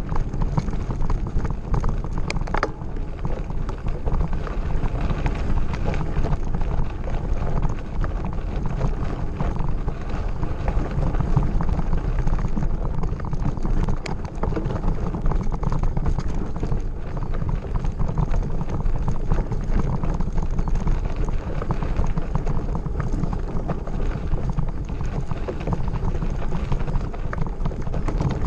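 Mountain bike ridden over a rough gravel forest road: tyres crunching and the bike rattling with constant small jolts, with wind buffeting the microphone.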